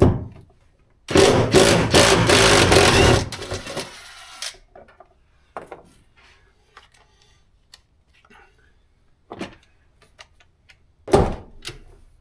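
A power tool on a socket runs hard for about two seconds, rattling quickly, to break loose a tight seat-mounting bolt, then winds down. Sharp knocks and small clicks of tools and metal parts follow.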